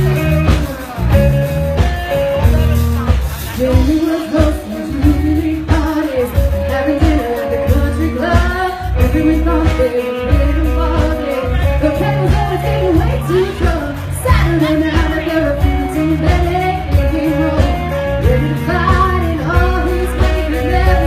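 A woman singing lead on a country-pop song, performed live with a band.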